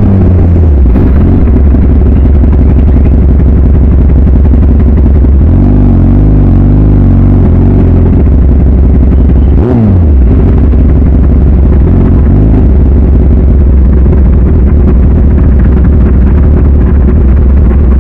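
Kawasaki ZX-10R's inline-four engine winding down as the bike slows, then running steadily at low revs. There are a few small revs about six seconds in and a brief dip with a quick falling note about ten seconds in.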